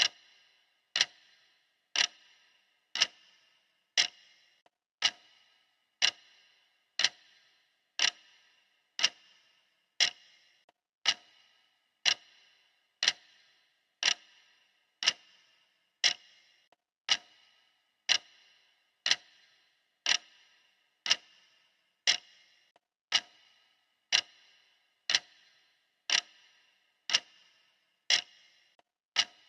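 Clock ticking steadily, one sharp tick each second, each tick with a brief ring.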